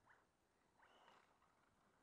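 Near silence, with two faint, brief hissing swells about a second apart.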